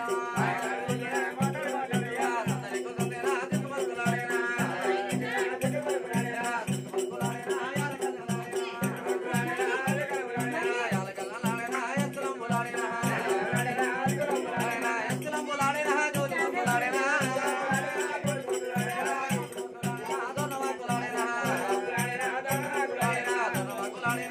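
Oggu Katha folk music: a voice singing a devotional song over a steady drone and an even drum beat of about two to three strokes a second, with rattling percussion.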